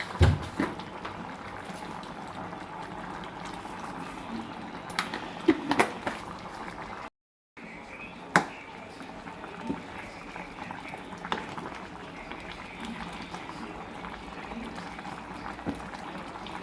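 Food cooking on the stove: a steady hiss with scattered sharp clicks and clinks. The sound cuts out briefly about seven seconds in.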